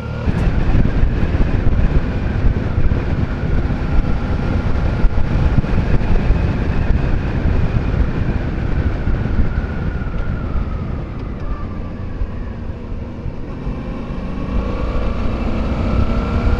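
Motorcycle running along the road with heavy wind rush over the camera microphone. The engine note drops a little past the middle and rises again near the end.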